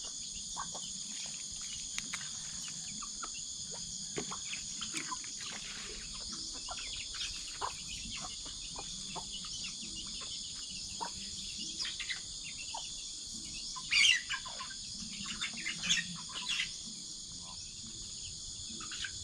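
Steady high-pitched insect chorus of crickets or cicadas, with many short bird chirps scattered through it and one louder chirp about fourteen seconds in.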